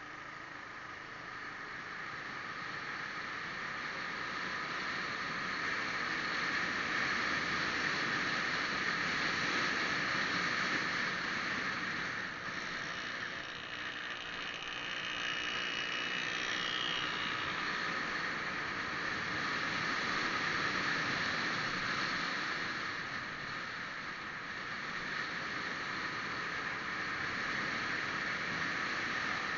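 Steady engine and road noise of a moving vehicle, with wind on the microphone, swelling and easing as it goes. A faint rising whine passes about halfway through.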